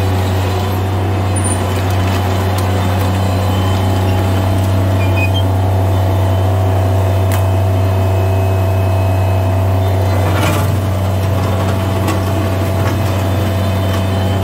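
Bobcat MT85 mini track loader's diesel engine running steadily under work, with a constant low hum. A few short knocks and a brief clatter about ten seconds in, as the loader's tracks and bucket work the gravel.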